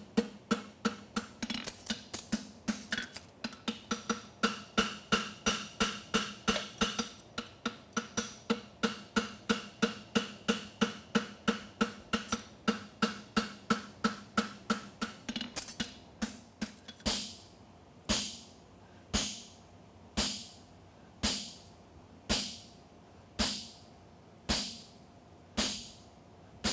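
Hand hammer striking a red-hot steel horseshoe on the horn of an anvil, putting in the quarter bend: quick, even blows about three a second with the anvil ringing. About two-thirds of the way through, the blows slow to an even one a second.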